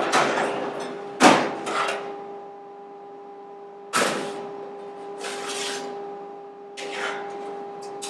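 Stainless steel drawer sliding open and steel pans of cutlery being lifted and set down on a stainless steel counter: a series of metallic clanks and rattles of flatware, loudest about a second in. A steady hum runs underneath.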